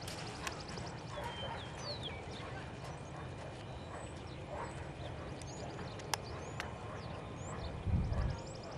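Lipizzan horse walking on sand arena footing, its hoofbeats soft, with faint high chirps in the background. A brief low rumble comes near the end.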